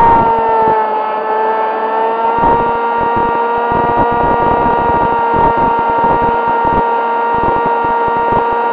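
Sonic Models AR Wing's electric motor and propeller whining in flight, with rushing wind on the onboard microphone. The pitch dips slightly in the first second, then holds steady.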